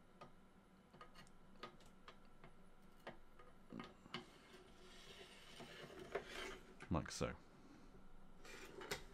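Faint scattered clicks and a scraping slide of parts inside a Daytona SCAR-H airsoft gas blowback rifle's upper receiver as a freshly oiled assembly is pushed back into it. The scraping is clearest a little past the middle.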